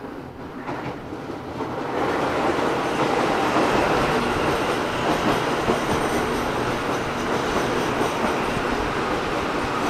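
Auckland AM-class electric multiple unit approaching and running past close by. Its rolling noise grows louder about two seconds in and then holds steady as the carriages pass.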